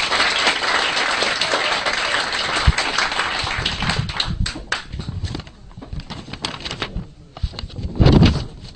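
Audience applauding, dense at first and thinning out to scattered claps after about four seconds, with a brief loud bump near the end.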